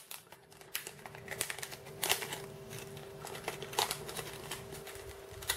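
Plastic packet of offset fishing hooks being opened and handled: faint crinkling and scattered light clicks.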